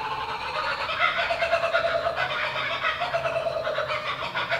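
A dense chorus of bird calls, rapid chattering notes running on without a break.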